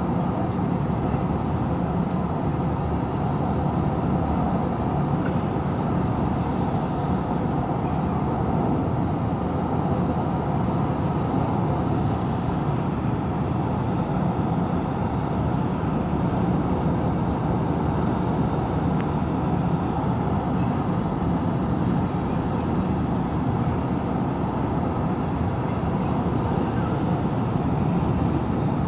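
Steady road noise of a car driving along: tyre and engine noise heard from inside the moving car, even and unbroken throughout.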